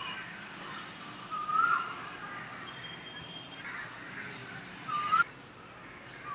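Cranes calling: three short, loud, upward-sliding calls, about a second and a half in, about five seconds in, and again near the end.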